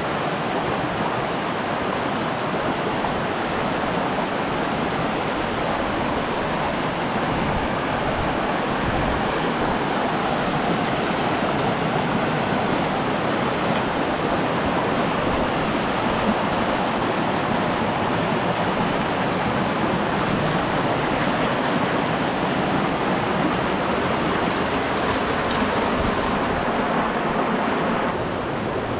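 Shallow mountain creek rushing over rocks and small cascades: a steady rush of water, easing slightly near the end.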